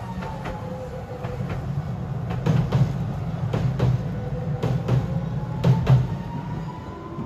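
Hiroden 3950-series tram crossing a steel girder bridge: a steady low rumble from the wheels with a string of sharp clunks over the rail joints, loudest in the middle, and a thin whine that dips in pitch and then rises again.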